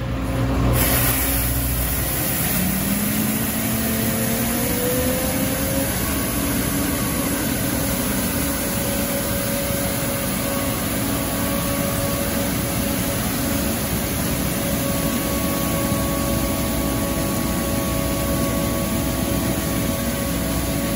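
Street sweeper truck working: its engine running, the note rising a few seconds in and then holding steady, over a steady hiss and the rushing scrub of the spinning gutter broom on asphalt.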